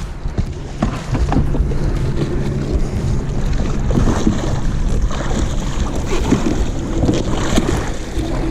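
Wind buffeting the microphone on a kayak at sea, with water against the hull and scattered knocks and thumps.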